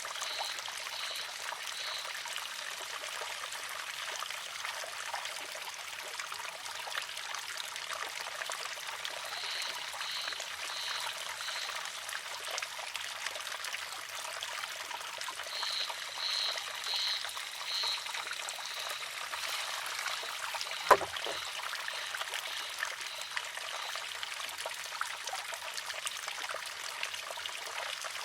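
Water trickling steadily into a wooden shishi-odoshi, with one sharp clack about three-quarters of the way through as the filled arm tips over and strikes its rock. A high chirping note repeats in short runs of four or five, three times.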